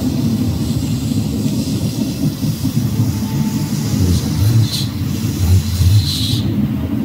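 A loud, steady low rumble, with two short hisses about five and six seconds in.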